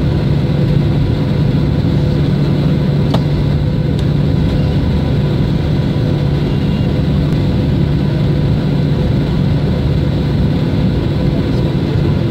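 Cabin noise of a Boeing 737 airliner taxiing: a steady low drone of the jet engines with a faint steady tone above it, and a faint click or two about three to four seconds in.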